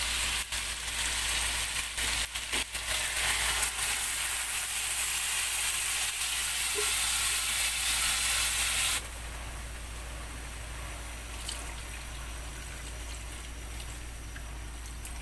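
Pork belly and aromatics sizzling in a stainless steel frying pan as chunks of boiled kamansi (breadnut) are tipped in and stirred, with a few sharp clatters in the first few seconds. About nine seconds in, the sizzle drops off abruptly to a quieter steady hiss as coconut milk is poured in.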